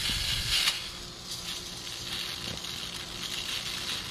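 Small Orbeez gel beads pouring out of a plastic jar into a plastic funnel, a steady pattering hiss that is strongest in the first second.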